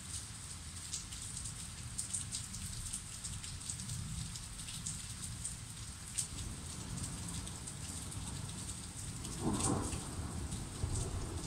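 Heavy rain falling, with scattered drops ticking close by, under a low rumble of thunder after a lightning flash. The thunder swells to a louder burst near the end.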